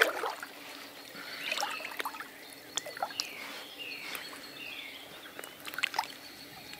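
Birds calling, a string of short whistled notes that curve in pitch, with scattered clicks and knocks, the loudest right at the start and a small cluster about six seconds in.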